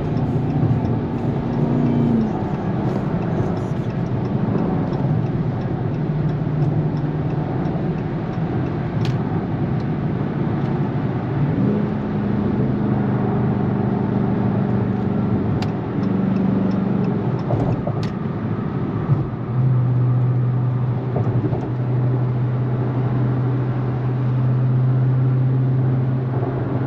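Dodge Charger 392 Hemi V8 with a mid-muffler delete, cruising at highway speed from inside the cabin: a steady exhaust drone over tyre and road noise. The pitch steps down, up and down again as the revs change, then holds a strong low drone for the last several seconds.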